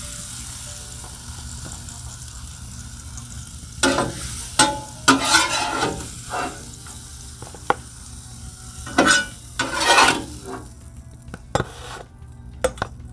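Food and oil sizzling on the hot steel top of a Blackstone griddle while a metal spatula scrapes across it in several short strokes. The sizzle dies away near the end, and a few light clicks follow.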